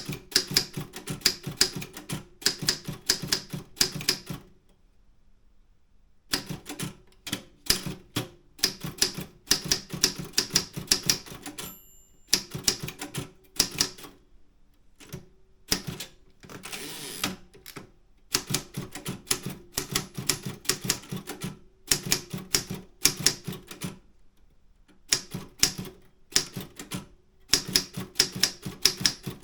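Optima M10 manual typewriter being typed on: runs of quick key strikes with short pauses between them, a single bell ding about twelve seconds in, and a brief rushing sound a few seconds later, like the carriage being returned.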